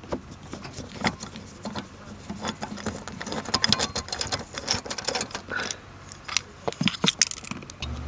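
Phillips screwdriver turning out the screw that holds a plastic coat hanger hook to a car headliner: a run of small irregular clicks and scrapes.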